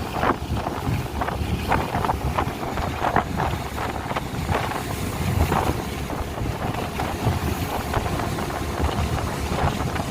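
Speedboat running at speed on a river: a steady engine and water rush with wind buffeting the microphone, broken by frequent irregular short thuds and splashes.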